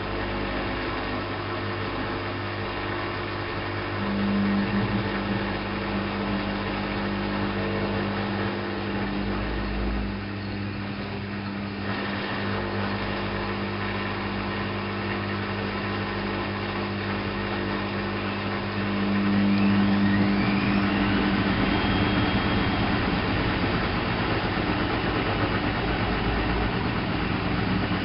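Alaska WA8200 E front-loading washing machine running through its programme: a steady mechanical hum with several fixed tones, which swells at about four seconds and gets louder again from about nineteen seconds.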